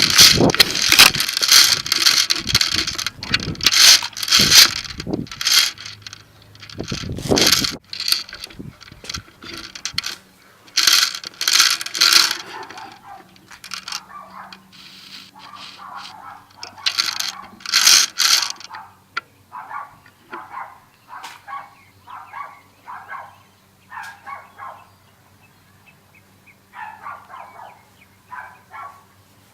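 Rustling and crunching of someone moving on foot through dry leaves or brush. It comes in loud bursts in the first half, then settles into softer, evenly paced steps.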